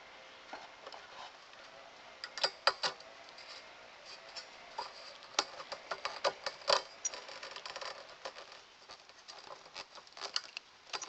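Irregular clicks and clacks of a screwdriver and the metal wiper blade parts as the blade is pried and twisted off a pin-type wiper arm connector, with a few louder clacks about two to three seconds in and another cluster around six to seven seconds.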